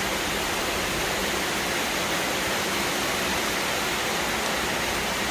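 A steady, even hiss with no pauses or distinct events.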